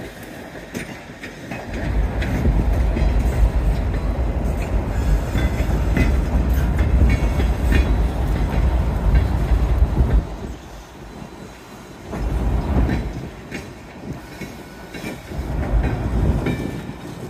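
Freight cars rolling across a railroad bridge, the wheels clicking over the rail joints, with wind buffeting the microphone in strong gusts that are loudest for the first half.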